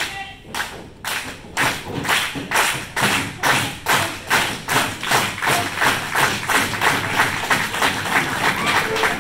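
Wrestling crowd clapping in unison, sharp even claps at about two a second that quicken to about three a second.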